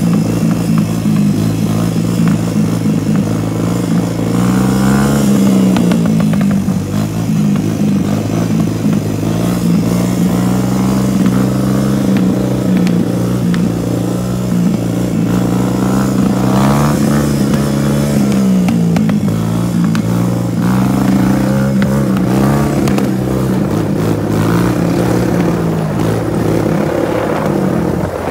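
Honda 250cc ATV engine running steadily at low revs, its pitch rising briefly as the throttle is blipped, once about five seconds in and again around seventeen seconds in.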